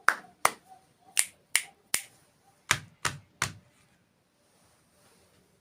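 A quick series of sharp snaps, about eight in irregular succession, stopping about three and a half seconds in.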